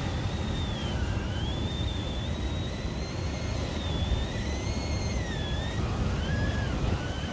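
Stainless-steel whistling kettle on a portable gas stove whistling at the boil, a high thin whistle that slowly wavers up and down in pitch and breaks into short pieces near the end. Steady surf and wind noise lie underneath.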